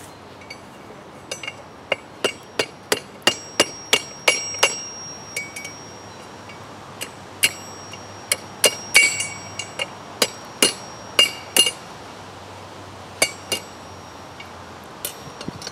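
Hand hammer striking a steel hook on the horn of an anvil: sharp ringing blows, a quick run of about a dozen, then a pause and several more groups of blows.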